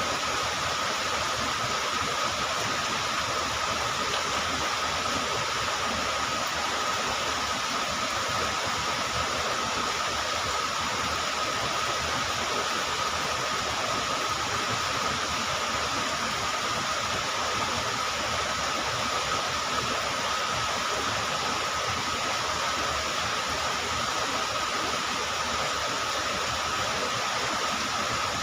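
Swollen river in sudden flood, water rushing in a steady, loud roar of noise, with a thin steady high tone over it.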